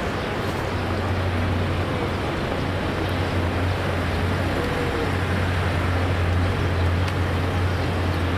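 Outdoor city ambience: a steady low rumble and hiss of street traffic, with no distinct events.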